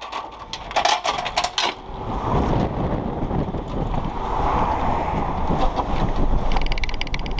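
Strong wind buffeting the microphone, a dense low rush, with a few sharp knocks in the first two seconds.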